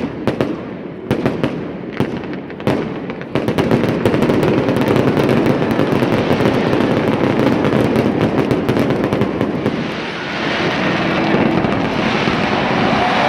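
Fireworks going off: a few separate sharp bangs, then, after about three seconds, a dense continuous crackle of rapid pops.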